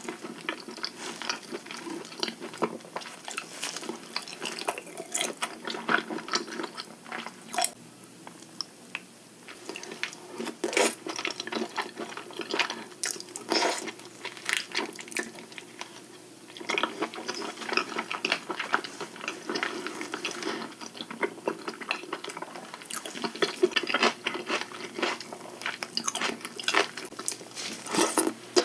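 Close-miked wet eating sounds of raw king crab: slurping and sucking meat from the legs, chewing and lip smacks, as a run of irregular sharp wet clicks.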